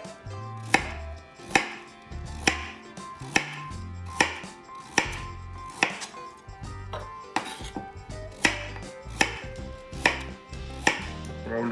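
Chef's knife slicing a carrot into rounds on a cutting board: a steady series of sharp chops, a little more than one a second, each as the blade goes through and hits the board.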